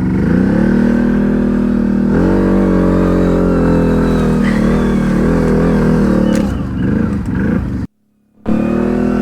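ATV engine revving hard under load. Its pitch climbs twice in the first few seconds, is held high, then wavers up and down. The sound drops out for about half a second near the end, then the engine resumes.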